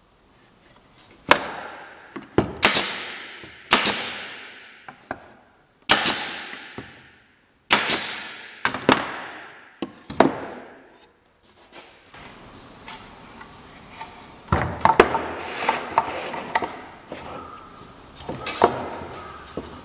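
About seven sharp knocks on wood in the first ten seconds, each ringing out briefly. After that comes a softer scraping and handling of wood with light taps.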